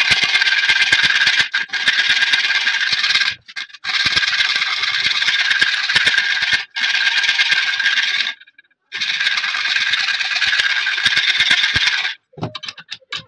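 A hand file rasping along the edge of an AKM magazine clamped in a vise, in three long bouts of filing with brief pauses about 3.5 and 8.5 seconds in. The filing stops about 12 seconds in, followed by a few light knocks.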